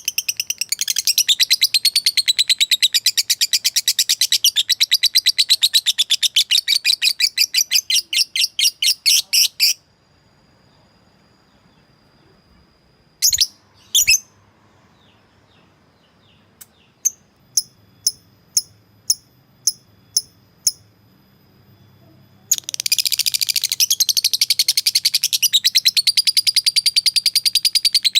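Lovebird giving its long, rapid chattering trill ("ngekek panjang"), which stops about ten seconds in. After a pause broken by two sharp calls and a string of short chirps, a second long trill starts near the end.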